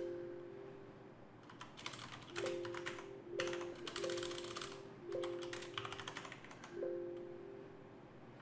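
Typing on a computer keyboard in short bursts of keystrokes. About six times a short chime of a few steady notes sounds and dies away within a second: the terminal bell, played as the Windows alert sound, which bash rings when Tab completion is ambiguous in the PuTTY session.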